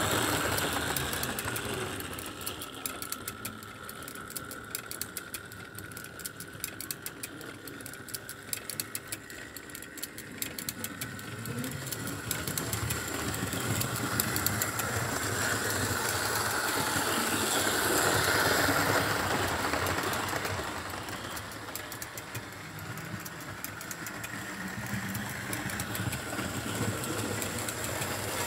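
Model train running on a layout's track: LMS 4-6-2 No. 6201 hauling coaches, its small electric motor whining steadily over a fast patter of fine clicks from the wheels on the rails. The sound swells louder about two-thirds of the way through and fades again as the train passes.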